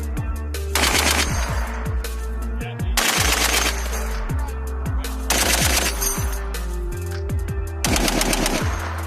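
Machine-gun fire in four short bursts, each under a second, about two to three seconds apart, over background music with a steady bass beat.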